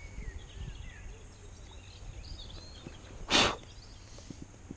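Wind buffeting the microphone with faint birdsong, and one short, loud rush of noise a little over three seconds in.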